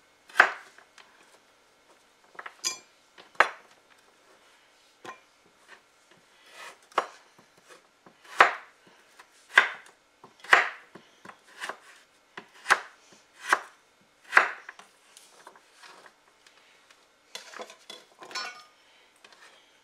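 Chef's knife chopping butternut squash into half-inch cubes on a wooden cutting board: separate sharp knocks, roughly one a second and irregularly spaced, with a few lighter clicks near the end.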